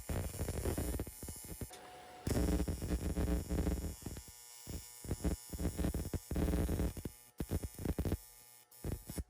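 AC TIG welding arc on aluminum, buzzing in repeated bursts as the arc is struck and stopped, with longer steady stretches in between. It cuts off abruptly near the end.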